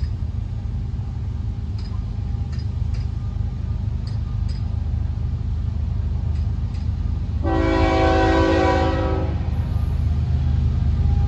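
Diesel freight locomotives of a Florida East Coast train approaching with a steady low engine rumble that slowly grows louder, and the air horn sounding one chord of about two seconds about seven and a half seconds in.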